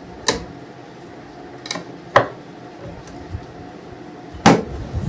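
A few short knocks and clicks from parts of an old radio being handled and set into its cabinet, the loudest about four and a half seconds in.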